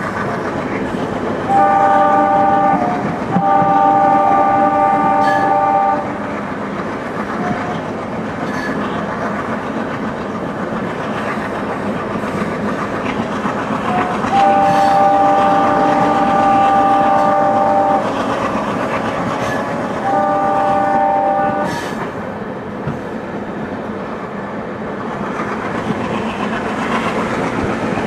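Train running at speed with a steady rumble of wheels on rail, while the hauling WDM3A diesel locomotive's multi-tone air horn sounds two pairs of blasts. The first pair comes near the start, a short blast then a longer one; the second pair comes about halfway through, a longer blast then a short one.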